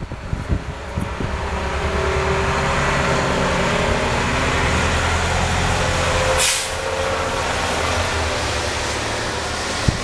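Snowplow truck's engine running as it passes along the road, growing louder over several seconds and then falling away after a short hiss about six and a half seconds in.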